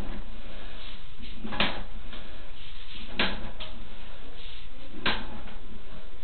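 Sewer inspection camera's push cable being fed down the line in strokes: a short scraping knock about every second and a half, three times, over a steady background noise.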